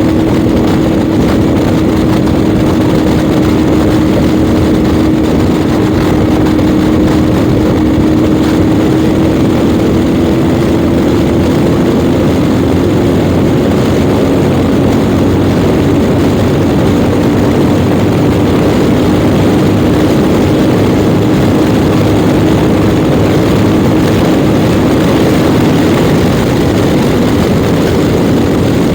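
Yamaha Ténéré 700 World Raid's parallel-twin engine running steadily at highway speed, with a heavy rush of wind noise over the rider's microphone.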